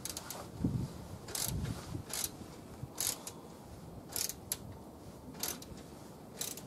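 Socket ratchet with a 16 mm socket clicking in short bursts about once a second, on each back-swing while tightening the snowblower's oil drain plug cap, with a couple of dull knocks in the first two seconds.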